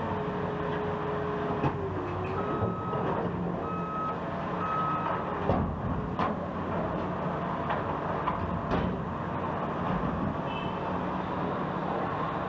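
Backup alarm of a construction vehicle beeping three times, about once a second, over the steady rumble of heavy engines at a road work site, with a few sharp knocks afterwards.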